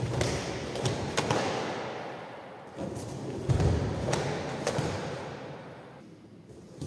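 Bare feet thudding and sliding on a wooden gym floor with the sharp snaps of a karate gi as punch combinations are thrown, in two quick runs, the second starting about three seconds in. The sounds echo in the hall.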